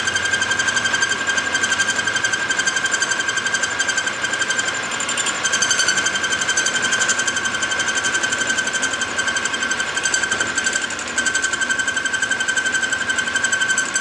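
Milling machine running, its spindle turning a metal part against a stationary boring bar as it cuts. It makes a steady high whine with a fast rattle.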